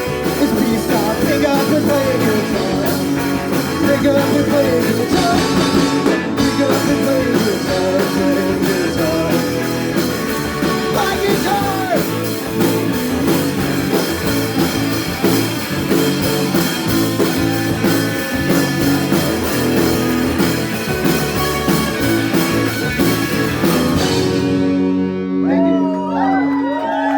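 Live rock band of electric guitars, bass guitar and drum kit playing an instrumental stretch of a song. About 24 s in the drums stop, and held notes ring on with sliding, wavering tones.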